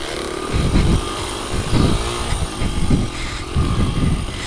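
Dirt bike engine running close up, its revs rising and falling in short bursts of throttle about once a second while riding.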